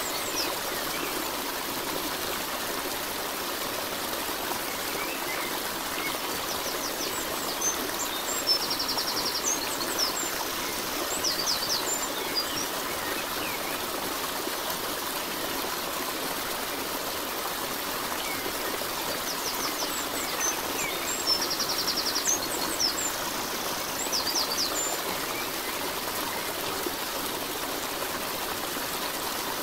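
Steady rushing of a stream, with short bird chirps and a fast trill coming in twice, the same phrase returning about twelve seconds later.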